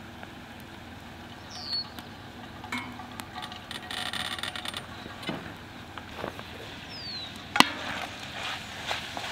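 Outdoor ambience with a bird's short whistle sliding downward, heard twice, and a stretch of fast clicking a few seconds in. Near the end a wooden spoon knocks once, sharply, against a small cast-iron pot hung over a campfire, followed by lighter scraping and tapping as it stirs.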